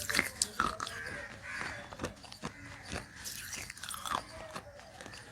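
Dry baked clay from an earthen diya being bitten and chewed close to the microphone: irregular sharp crunches and gritty crackles. The clay is bone-dry, not wetted first.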